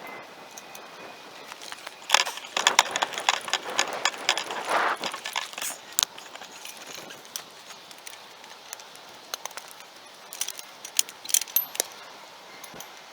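Clusters of sharp metallic clinks and rattles, busiest from about two to six seconds in and again a few seconds before the end.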